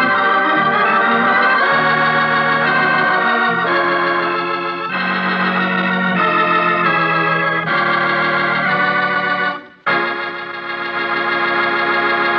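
Organ music cue ending the scene: a series of held chords that change every second or two. After a short break near the end comes a final sustained chord.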